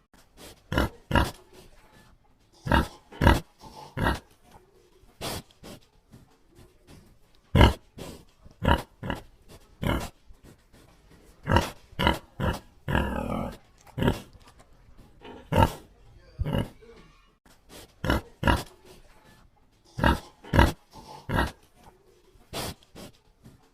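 Domestic pig grunting in short, irregular grunts, with one longer call about thirteen seconds in.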